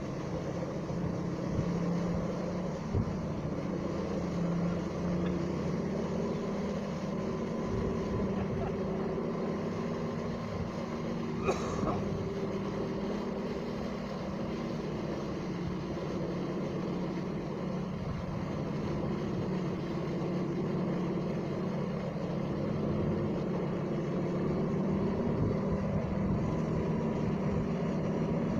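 A steady engine-like drone whose pitch wanders slowly up and down, with a sharp click about three seconds in and a brief knock near the middle.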